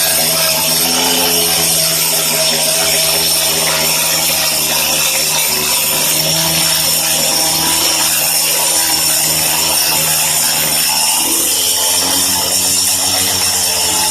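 Handheld electric power cutter running steadily, a continuous motor whine whose pitch wavers slightly.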